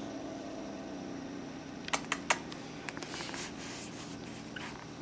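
A cat growling low and steady. About two seconds in come a few sharp clicks, and a brief rush of noise follows about a second later.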